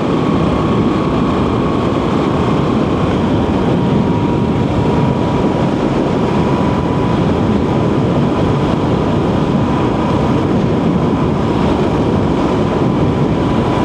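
Motorcycle riding at a steady speed: a steady mix of engine and wind noise, with a thin whine that drops slightly in pitch about three seconds in.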